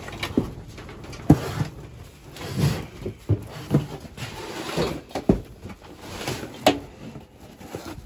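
Cardboard boxes and plastic crates being shifted and set down: irregular knocks and thumps, the sharpest about a second in, with scraping and rustling between them.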